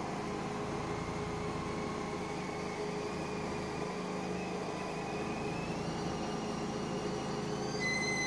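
A steady machine-like whir with a faint hum and a thin high whine that drifts slowly upward in pitch. Near the end the whine becomes clearer and steadier.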